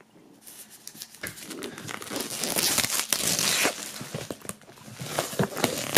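Plastic shrink-wrap film crinkling and tearing as it is cut open and peeled off a box, in irregular crackles that are loudest around the middle.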